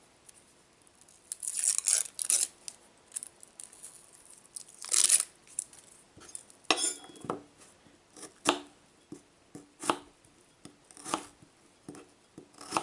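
Dry onion skin rustling and tearing as it is peeled, then a freshly sharpened kitchen knife cutting through the onion onto a chopping board: a series of short cuts, about one a second, in the second half.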